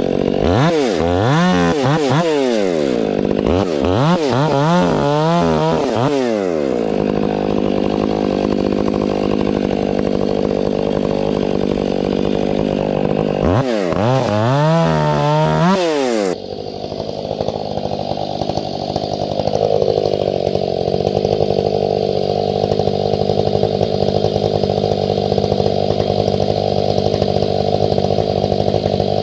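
Chainsaw fitted with square-ground chain, bucking firewood. The engine pitch swings up and down several times in the first few seconds and again around the middle, then runs steady with a duller tone. The chain is filed, with its rakers set, for felling as well as bucking.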